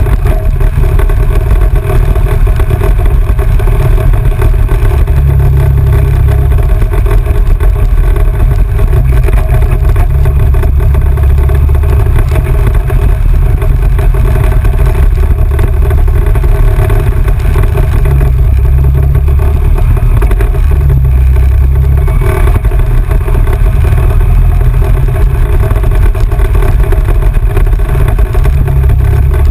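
Off-road vehicle driving along a dirt trail: a loud, steady mix of engine and tyre noise with a heavy, wavering low rumble, heard from a camera mounted on the vehicle.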